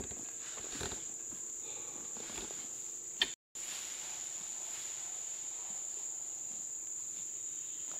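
Insects singing in one steady, high-pitched drone, which cuts out for a split second about halfway through.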